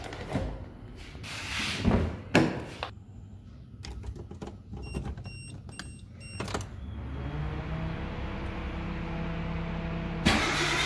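Suzuki Cultus's door being unlocked and opened, with several key and latch clicks and a few short high beeps. From about seven seconds in the car's engine hums steadily, getting louder near the end.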